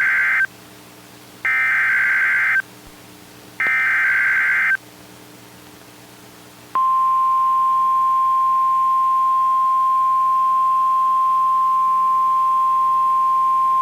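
EAS/SAME digital alert header on NOAA Weather Radio: three roughly one-second bursts of buzzy warbling data tones, the first already under way, with short gaps of faint hum between them. About seven seconds in, the steady single-pitched weather radio warning alarm tone starts and holds, signalling that a severe thunderstorm warning follows.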